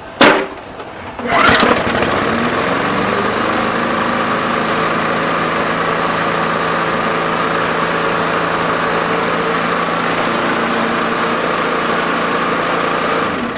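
Briggs & Stratton push-mower engine pull-started, primed with a few squirts of gas, catching on the first pull about a second and a half in after a sharp clack. It climbs up to speed and runs steadily, then cuts off near the end.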